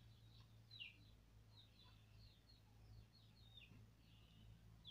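Faint birds chirping: a string of short, high, falling chirps, several each second, over a low steady hum.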